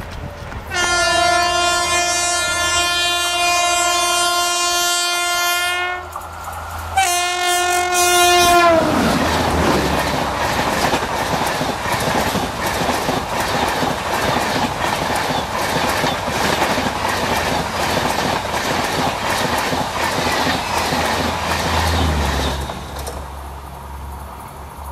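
Electric locomotive horn (WAP-5) sounding two long blasts, the second dropping in pitch as the locomotive passes at speed. Then the rush of the passing train with rapid clickety-clack of wheels over rail joints, fading near the end as the train goes by.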